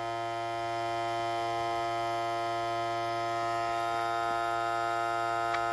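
Vacuum sealer's pump motor running with a steady hum as it sucks the air out of a plastic bag.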